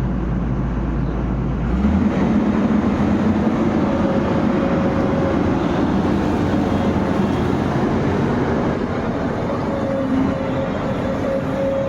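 Excavator engine running loud and steady. It picks up about two seconds in, with a thin whine that comes and goes.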